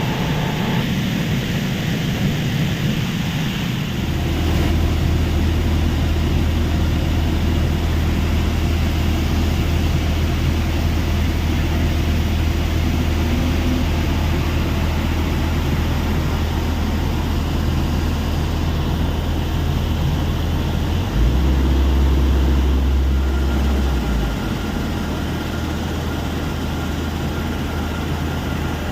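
Heavy machinery running with a steady low drone. About 21 seconds in, the drone drops lower and gets louder for about three seconds, then settles back.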